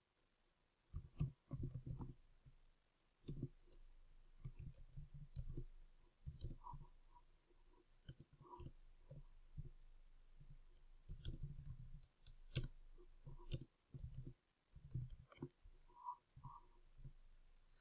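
Typing on a computer keyboard: faint, irregular keystroke clicks in short runs with brief pauses.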